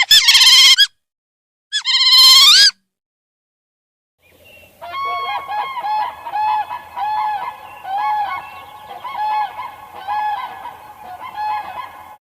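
Animal calls: two loud pitched calls in the first three seconds, then, from about four seconds in, a chorus of many short repeated calls from several animals at once.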